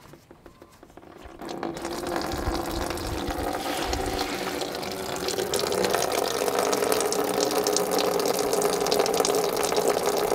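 Old engine coolant pouring from a loosened radiator drain bung and splashing into a plastic drain pan. It starts about a second and a half in after a few small clicks, then runs as a steady splashing stream.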